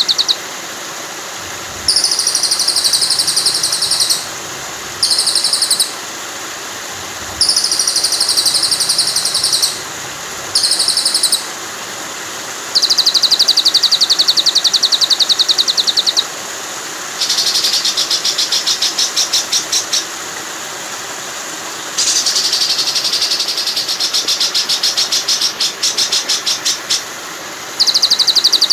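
Songbird training recording: rapid, high, buzzy trills repeated in bursts of one to four seconds, with short gaps between them. Under them runs a steady rush of flowing water.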